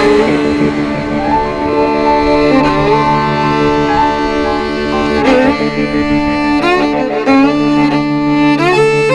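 Background music led by a bowed string instrument, with long held notes and slides between them and no drum beat.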